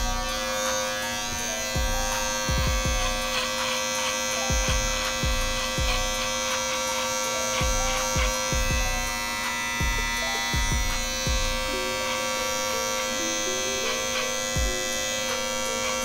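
Corded electric hair clippers running with a steady buzz as they cut hair at the back of the head. Background music with a beat plays along.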